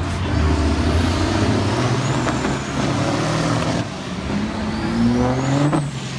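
Farm tractor engine running loud and steady, then revving up in a rising pitch for about a second before dropping off sharply near the end.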